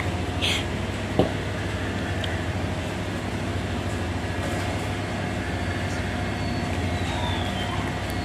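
A steady low rumble, like a running motor or distant traffic, with a single sharp click about a second in.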